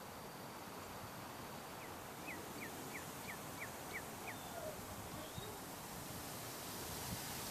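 Soft, steady outdoor hiss of light wind. About two seconds in, a small bird gives a quick run of about eight short, falling chirps, about three a second.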